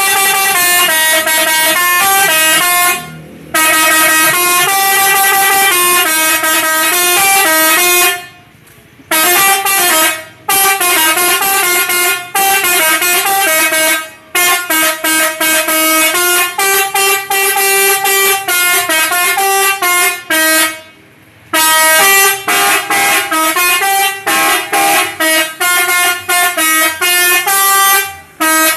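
Telolet multi-trumpet horn set, driven by an electronic melody module, playing a tune in stepped horn notes. There are a few short breaks, and the notes come quicker and choppier in the last third.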